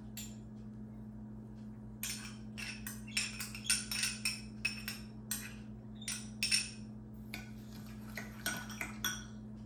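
A metal spoon clinking and scraping against glass, as dressing is scraped out of a small glass and stirred in a glass bowl: a quick run of light clinks starting about two seconds in. A steady low electrical hum lies underneath.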